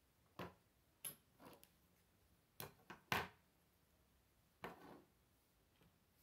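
Plastic Lego pieces clicking as they are pulled apart and handled: about seven short, sharp clicks at uneven spacing, the loudest a little past three seconds in.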